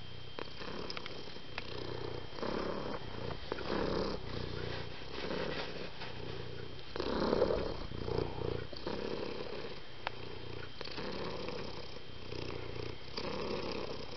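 Domestic cat purring, the purr swelling and fading about once a second.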